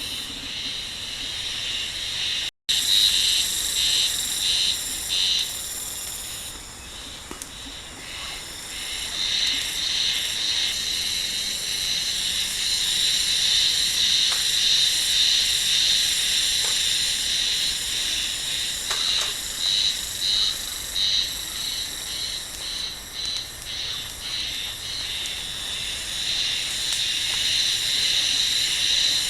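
Insects singing outdoors: a high-pitched, pulsing chorus that swells and fades in repeated phrases.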